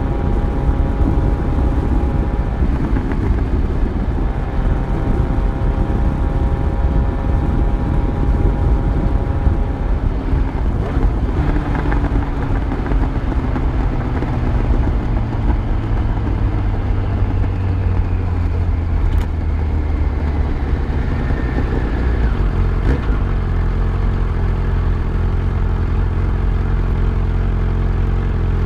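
Yamaha FZ1's inline-four engine running with the bike under way, heavy low rumble. About ten seconds in the engine note starts falling steadily as the bike slows, then settles into a lower, even running for the last few seconds.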